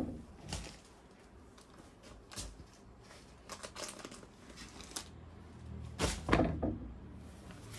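Scattered rustles and light knocks of clothes being handled and laid out, with a louder cluster about six seconds in.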